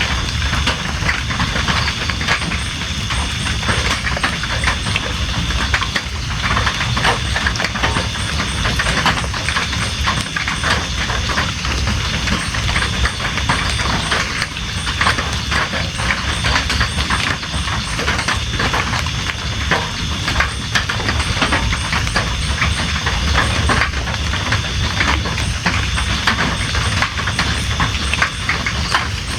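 Steady rain, a dense patter of drops, over a constant high-pitched trill that breaks off briefly every couple of seconds.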